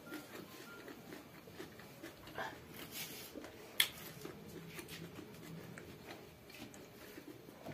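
Faint eating sounds: soft chewing and wet mouth noises, with one sharp click or smack about four seconds in.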